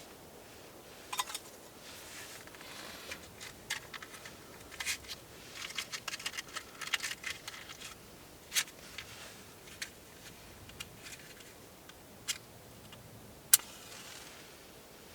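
Irregular light clicks, taps and rustling, busiest in the middle, with one sharp click near the end as the loudest sound.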